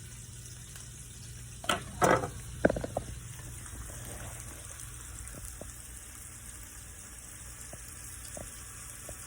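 Pieces of perch frying in a pan on the stove, a steady sizzle, with a few knocks and clatters about two to three seconds in.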